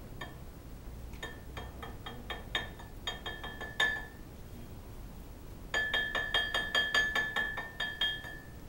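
Metal hand tool working on the underside of a Suzuki Wagon R: two runs of quick ringing metallic clicks, about four or five a second, the second run louder.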